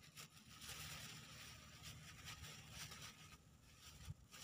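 Faint crinkling and rustling of a thin clear plastic bag being handled, with a few soft clicks.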